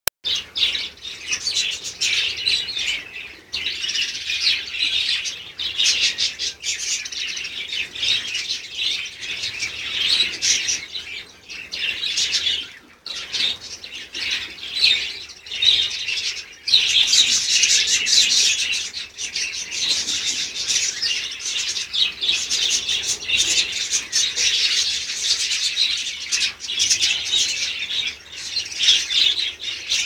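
A flock of budgerigars chattering and chirping continuously, many birds at once, with wing flutters as some fly about. There is a brief lull about 13 seconds in, and the chatter is louder in the second half.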